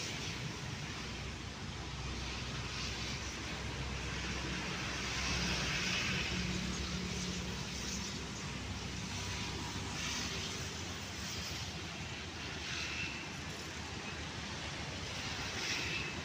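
Diesel locomotive engine running with a steady low drone as the train approaches slowly, swelling a little about five seconds in.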